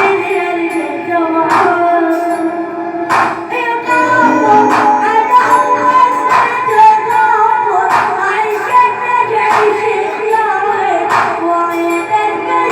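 Arabic music with an ornamented, wavering melody over sustained lower notes and a steady beat, a strong percussion hit about every second and a half.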